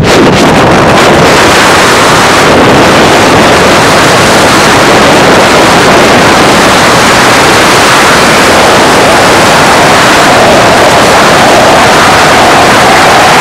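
Loud, steady rush of wind and road noise from a car moving at highway speed, with wind buffeting the microphone. A faint steady hum comes in near the end.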